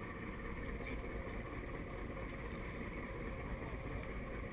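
Steady wind noise on the microphone mixed with water sounds around a fishing boat on a choppy bay, with no distinct event standing out.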